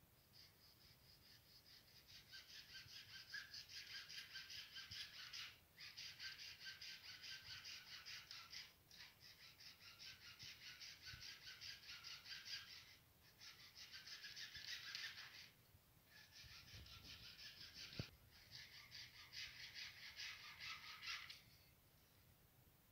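Hacksaw cutting through an orange PVC drain pipe: steady back-and-forth rasping strokes in several runs with short pauses. The sawing stops about a second before the end, once the pipe is cut through.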